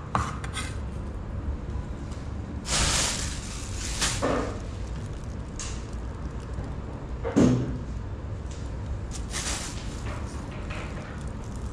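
Kitchen-knife handling sounds: a large knife knocking and cutting on a wooden cutting board, and a plastic bag rustling as fruit is handled. These come as a few scattered knocks and rustles over a low steady background hum.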